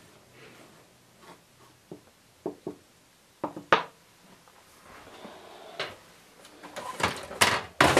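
Hands handling plastic-wrapped fiberglass layups on a tabletop: scattered light clicks and knocks, then a few louder rustling scrapes near the end.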